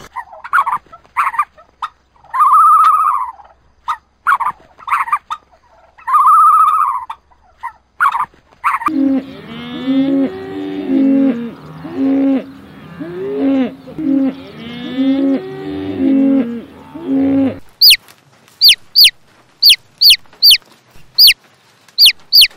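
Horses neighing, with short calls and two longer arching whinnies. Cattle mooing follows from about nine seconds in, several low calls overlapping. Newborn chicks peeping near the end: rapid high peeps, each falling in pitch, about two a second.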